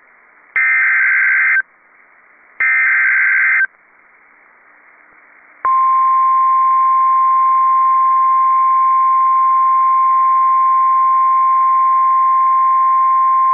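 NOAA Weather Radio Emergency Alert System alert: two bursts of screechy SAME data header tones, about a second each, then, about six seconds in, the steady single-pitch 1050 Hz warning alarm tone comes on and holds. The alert sequence signals that a warning, here a severe thunderstorm warning, is about to be broadcast.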